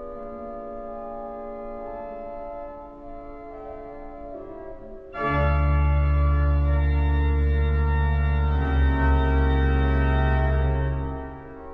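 Pipe organ playing sustained chords, softer at first; about five seconds in a much louder, fuller passage with deep bass notes enters, holds for about six seconds and drops back near the end.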